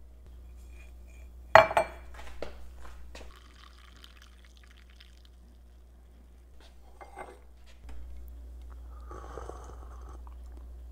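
Glass coffee carafe lifted from a drip coffee maker with a sharp clink about a second and a half in, then coffee poured from it into a ceramic mug for a couple of seconds. A few lighter glass clinks follow later.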